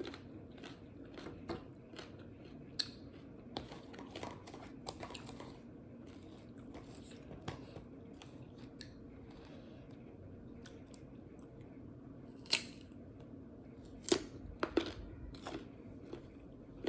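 Quiet chewing of crisp food, mango with fried chilies, with scattered small clicks and crunches and a few sharper clicks near the end.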